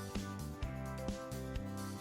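Background music with a steady beat, about two strokes a second, under held pitched notes.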